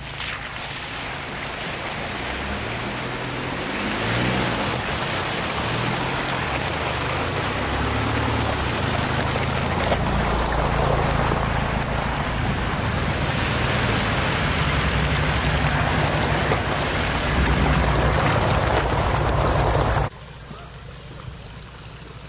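4WD vehicle on the move: a loud rushing of wind and road noise over a low engine drone, building gradually and cutting off abruptly near the end.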